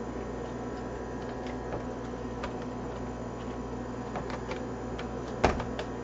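Small plastic clicks and ticks as a ThinkPad T430's palm rest is pried up off its snap clips, with one louder snap about five and a half seconds in, over a steady low hum.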